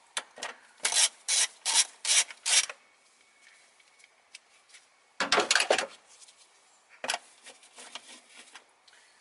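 Ratchet wrench on a 10 mm socket and extension clicking as a nut is loosened. About five short strokes come in the first three seconds, a quicker run of clicks a little after five seconds in, and a single click near seven seconds.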